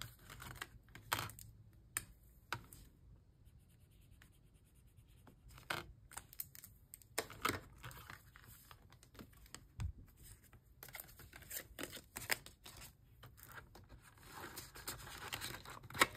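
Paper banknotes and clear plastic binder envelopes being handled: scattered soft rustles and crinkles with light clicks.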